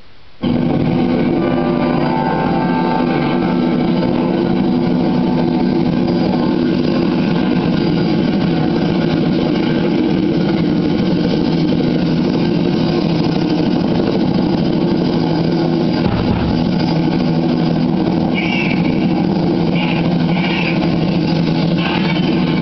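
A recorded track starts abruptly through a speaker with a loud, steady, engine-like sound-effect intro; a few sharper bursts come near the end, and band music follows.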